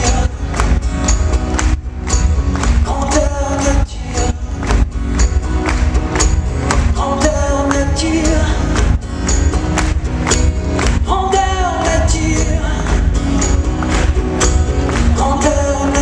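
Live pop song played on acoustic guitars over a steady beat, with a male singer's phrases coming back every few seconds. Heard from the audience of a large hall, the sound is boomy and heavy in the bass.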